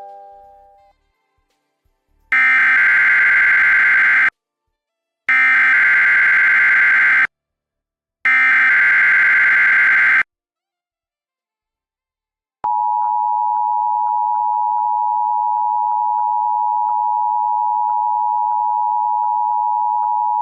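Emergency Alert System test signal: three identical two-second bursts of warbling SAME data header, then after a pause the steady two-tone EAS attention signal, held for about eight seconds.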